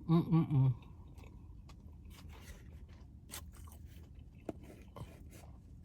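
A person chewing food close to the microphone: faint wet mouth clicks and small crunches, after a short spoken word at the start.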